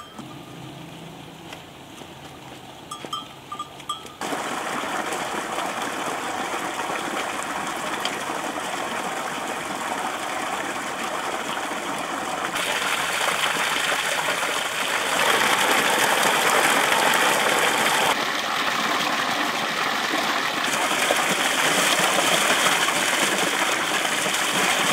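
Spring water gushing steadily from a pipe onto stones and into a basin, starting suddenly about four seconds in and getting louder about halfway through. Before it, a few light knocks over low background.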